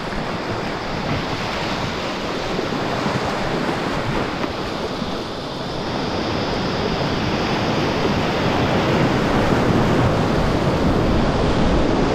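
Rushing whitewater of a river rapid, heard from a packraft running through it. The rush grows steadily louder as the raft drops into the bigger waves.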